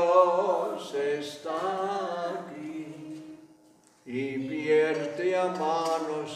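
Voices singing a slow Catholic hymn unaccompanied, holding long notes, with a short pause for breath about three seconds in before the next phrase.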